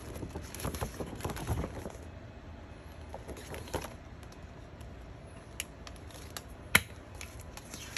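Pages of a ring-bound photobook being turned and handled by hand: soft paper rustles in the first half, then a few sharp clicks, the loudest near the end.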